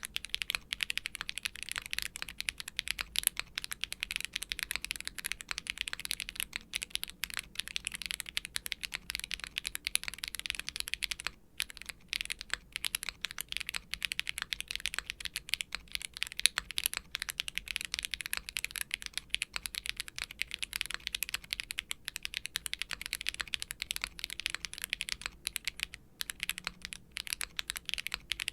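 Continuous fast typing on a custom mechanical keyboard: a gasket-mounted aluminium Polygon7 with HMX KO1 light tactile switches and GMK double-shot ABS keycaps. The keystrokes run in a dense, steady stream, with brief pauses about eleven seconds in and again near the end.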